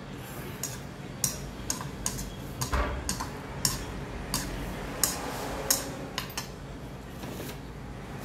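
Stainless-steel spoon and chopsticks clinking against a ceramic bowl while mixing jjajangmyeon noodles in black bean sauce. The clinks come as a run of irregular sharp clicks, one or two a second, and stop about six and a half seconds in.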